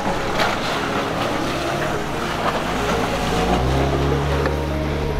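Boat motor running under way, with a steady rush of water and wind; the low engine hum grows stronger about three and a half seconds in.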